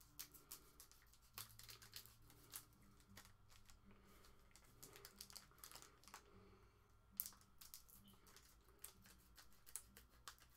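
Faint crinkling and scattered light clicks of foil trading-card packs and cards being handled and snipped open.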